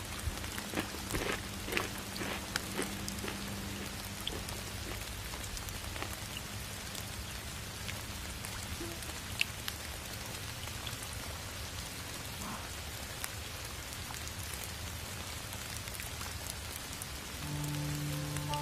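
Steady rain, an even hiss with scattered patters of drops. A few held musical notes come in near the end.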